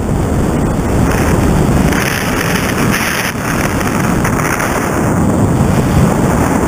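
Wind rushing over the microphone of a pole-mounted camera on a paraglider in flight: loud, steady buffeting that grows a little stronger two to three seconds in.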